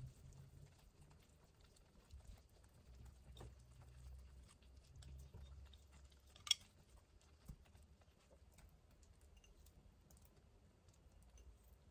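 Near silence over a faint low hum, with soft scattered clicks of chopsticks against a ceramic pot and plate as slices of Spam are laid onto the ramen. One sharp click a little past the middle.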